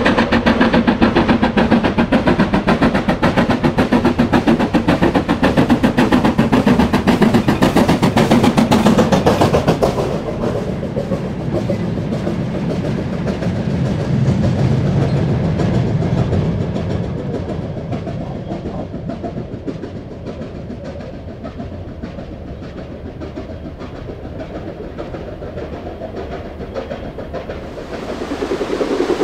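LMS Black Five 4-6-0 steam locomotive No. 5428 'Eric Treacy' working hard with its train: rapid, loud exhaust beats as it passes close. About ten seconds in the sound loses its sharpness and slowly fades as the train draws away.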